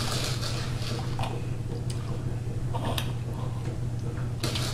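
A toddler sucking and licking his fingers, with a few brief, wet mouth smacks over a steady low hum.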